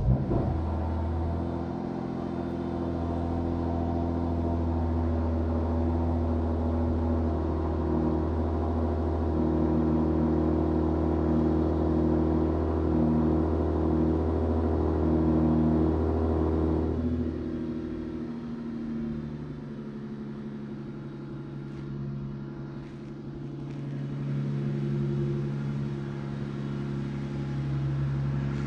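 Lexus IS 350's 3.5-litre V6 catching and running at a fast idle on its first start with freshly fitted spark plugs, then settling to a lower, quieter idle about 17 seconds in.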